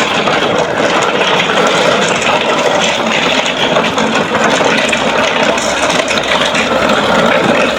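A motor vehicle's engine running steadily under a loud, even noise.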